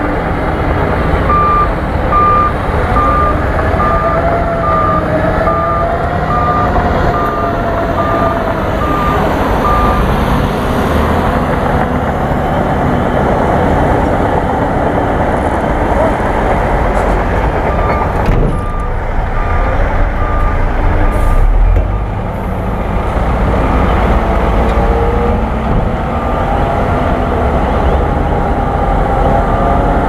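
Crawler bulldozer's diesel engine running steadily under load as it pushes dirt, while a vehicle's reversing alarm beeps regularly, about twice a second, through the first ten seconds and again in the second half.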